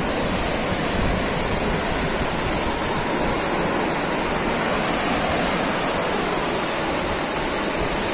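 Sea surf on a sandy beach: waves breaking and washing in, heard as a steady, even rush.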